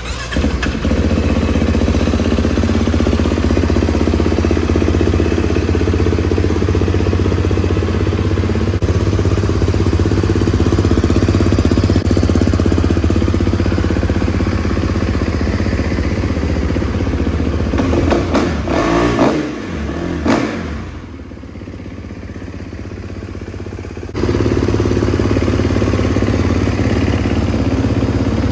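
2020 Kawasaki KX450's 449 cc single-cylinder four-stroke engine running steadily, with two quick throttle blips about two-thirds of the way through. It is quieter for a few seconds after that, then the steady running resumes.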